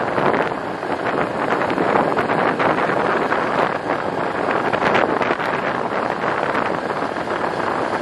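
Vehicle driving on a gravel road: steady tyre noise on loose gravel with many small ticks of stones, and wind on the microphone.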